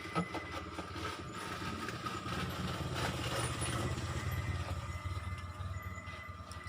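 An engine running steadily with a low, fast-pulsing rumble that grows louder in the middle, with a few sharp clicks right at the start.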